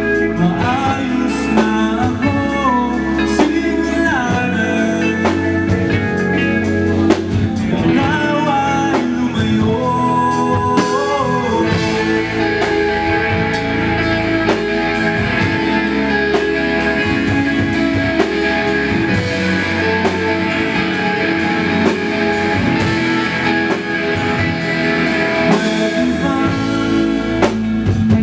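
Live rock band playing a song: singing over guitars, bass and drums. The band gets fuller and brighter about twelve seconds in.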